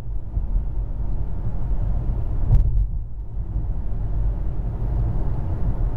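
Road noise inside a moving car: a steady low rumble from the tyres and engine, with a single light knock about two and a half seconds in.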